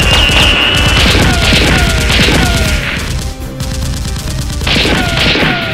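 Dubbed-in rapid gunfire sound effects over loud, pounding action music, with repeated short falling whines; the firing drops away into a brief lull about three seconds in and picks up again near the end.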